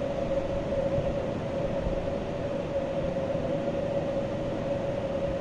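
Steady room hum with one constant mid-pitched tone over a low, even noise, unchanging throughout.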